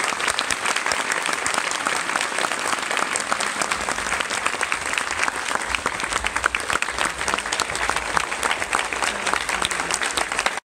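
Audience applauding: a dense, steady clatter of many hands clapping that cuts off suddenly near the end.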